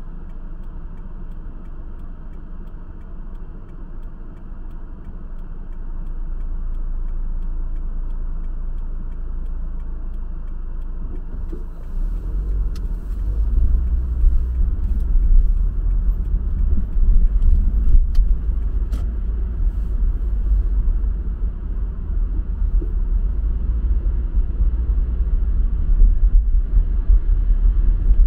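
Low, steady rumble of a car driving, heard from inside the cabin. The road noise grows louder about twelve seconds in, and a few faint clicks come through.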